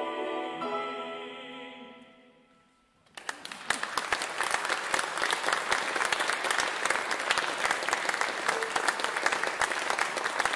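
The closing piano chords of a classical song ring and die away to near silence, then a small audience breaks into applause about three seconds in and keeps clapping steadily.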